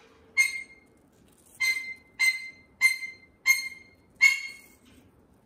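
A white cockatoo biting chunks off a piece of apple held in its foot: six sharp crunches, each with a short ringing tail, most about two-thirds of a second apart.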